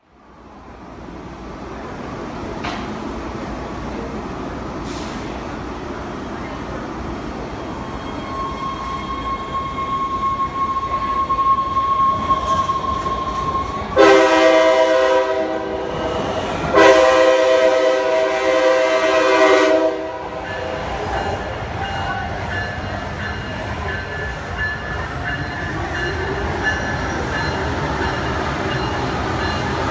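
Trains running through a station, with a steady high whine held for several seconds. Then two long, loud blasts of a Washington Metro train's horn, which sounds several tones at once, the second about three seconds after the first. The noise of moving trains carries on after the horn.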